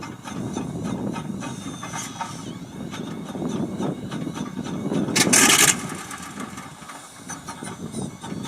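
Old helicopter engine being started after years of standing, running rough with irregular pops. A loud hissing burst comes about five seconds in.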